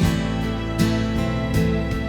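Acoustic guitar strumming chords in a tender instrumental passage, a fresh stroke about every 0.8 seconds.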